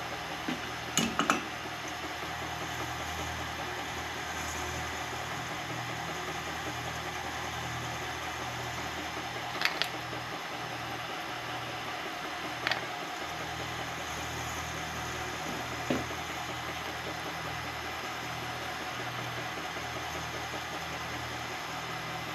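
Milling machine motor running steadily with a low hum, while an end mill cuts a carbon fiber handguard. A few short sharp clicks about a second in and again near 10, 13 and 16 seconds.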